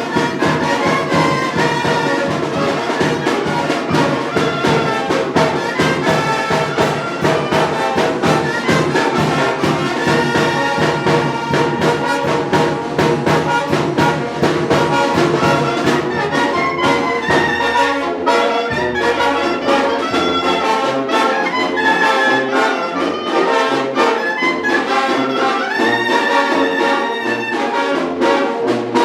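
Mexican brass band playing a lively piece: trumpets, trombones and saxophones over a steady drum beat. From about two-thirds of the way in, a low bass line stands out, moving note by note.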